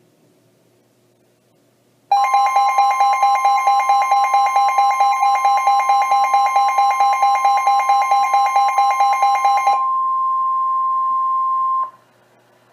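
Emergency Alert System attention tone announcing a Special Marine Warning. A loud two-note alarm pulses about five times a second for nearly eight seconds, then a single steady tone holds for about two seconds and cuts off.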